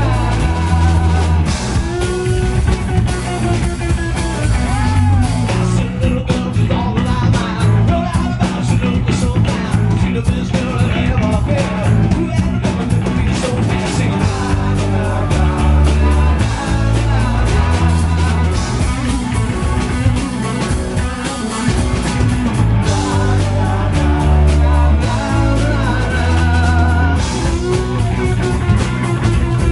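Live rock band playing: distorted electric guitars, bass guitar and drum kit, with a lead vocal sung over them.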